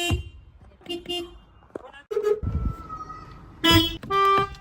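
A run of car horns honked one after another, a different horn each time: short beeps and blasts of under half a second at differing pitches, the loudest two near the end.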